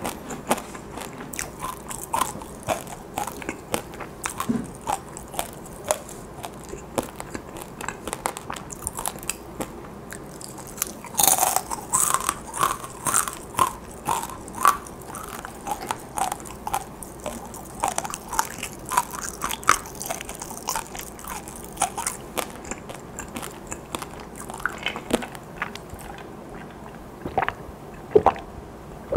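Close-miked chewing of crunchy fried, sugared dried chili pepper chips (gochu-twigak): a steady run of crisp crunches and munching, with a louder stretch of crunching about eleven seconds in. Near the end, a drink from a cup.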